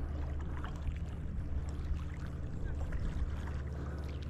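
A steady low engine drone with a few faint ticks over it.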